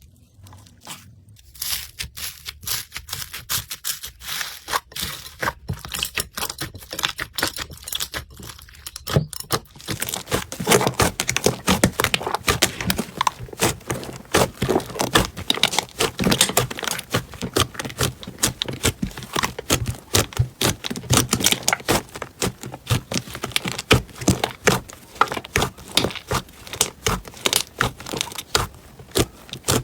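Slime being squeezed and pressed by hand, giving a continuous run of small crackles and pops. The crackling is sparse at first, then turns louder and denser about a third of the way in.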